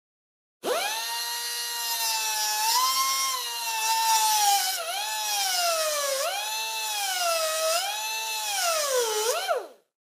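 Electric drill motor whining: it spins up quickly about half a second in, and its pitch dips and recovers four times as it runs, then it stops abruptly just before the end.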